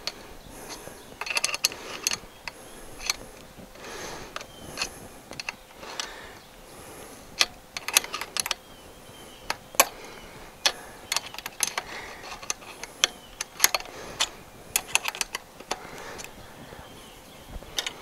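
Irregular metallic clicks and clinks of a crescent wrench on the antenna mount's clamp nuts, as they are loosened to free the antenna.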